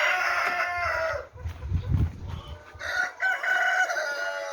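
Rooster crowing twice, each crow a long call with a falling end, the second starting about three seconds in. A low rumble sounds between the two crows.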